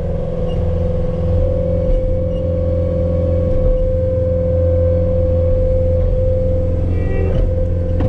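Skid steer running steadily, heard from inside the operator's cab: a low engine hum with a steady whine above it as the loader arms are worked.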